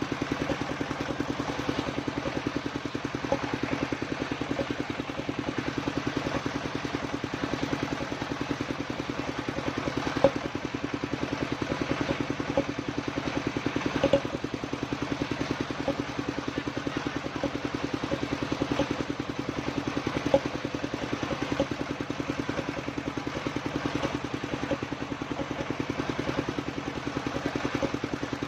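Homemade circular saw rig running steadily on its engine, with a few sharp knocks along the way.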